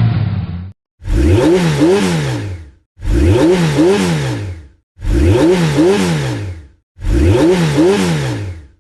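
Sports car engine revving in double blips: the pitch rises and falls twice in under two seconds. The identical clip plays four times with short silent gaps between, after the end of an earlier rev at the start.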